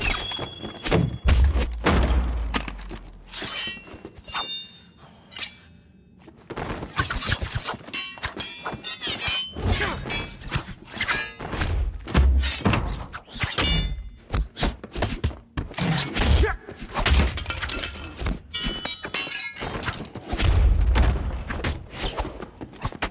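Film fight-scene sound effects: a fast run of blows, thuds and smashing breakage, some hits ringing with a metallic clang, under deep booms. A quieter lull comes about four seconds in before the hits pick up again.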